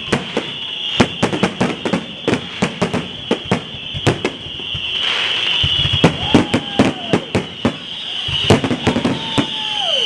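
Fireworks going off: a rapid, uneven string of sharp cracks and pops, with a whistle falling in pitch near the end.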